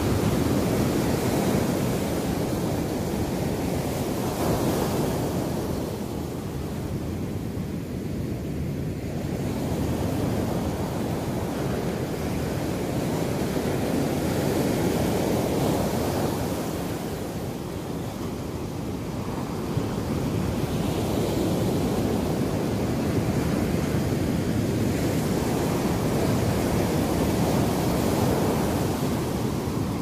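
Ocean surf: small waves breaking and washing up a sandy beach in a continuous rush that swells and eases roughly every ten seconds.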